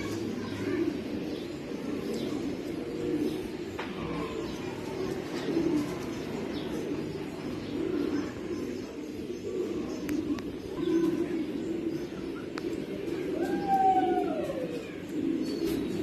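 Domestic pigeons cooing: low, overlapping coos pulsing on without a break, with a few higher chirps and a short falling call near the end.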